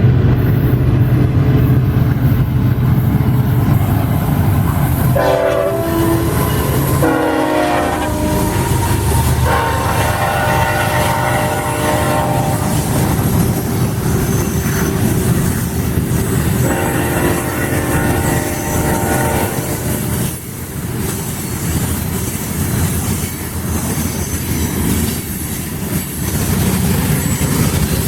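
Diesel freight locomotive air horn sounding four times, two short blasts and then two long ones, over the steady rumble of a passing freight train.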